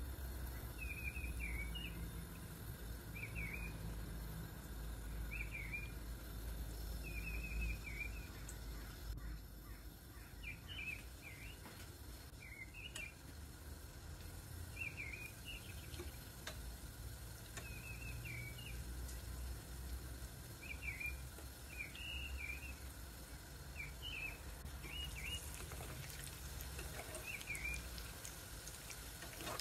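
Short bird chirps repeating every second or two, over a low steady hum and the faint sizzle of chicken rolls deep-frying in oil.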